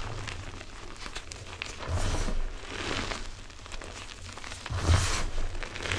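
Gloved hands squeezing and crushing gym chalk mixed with cornstarch in a bowl: a crunching, squeaky powder sound that swells in stronger squeezes about two seconds and five seconds in.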